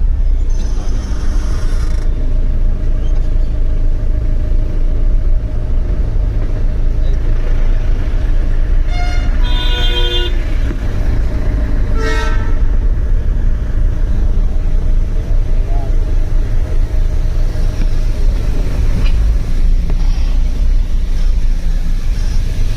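Darjeeling toy train's horn sounding twice, a longer blast about nine to ten seconds in and a short toot about twelve seconds in, over a steady low rumble of running machinery.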